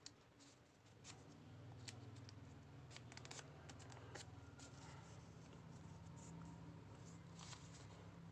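Faint crinkling and light clicks of origami paper being folded and creased by hand, over a low steady hum.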